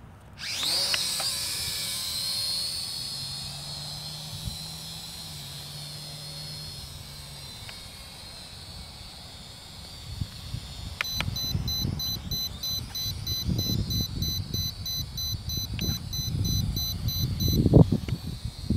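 Small quadcopter drone's electric motors spinning up sharply about half a second in to a high, many-pitched whine, which then runs steadily and slowly fades. From about eleven seconds a rapid high electronic beeping, about three beeps a second, runs over it for several seconds, with low gusty rumbling underneath.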